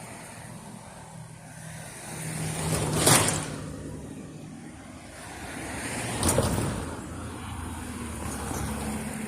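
Two motor vehicles pass close by one after the other, each swelling up and fading away, over a steady low engine hum.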